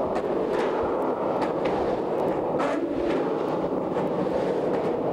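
Skateboard wheels rolling on the concrete wall of a large drain pipe, a steady rumble with scattered sharp clicks and knocks from the board.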